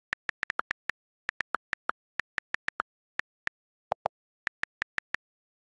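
iPad on-screen keyboard key clicks, rapid and irregular, as letters are typed one after another; two deeper clicks about four seconds in.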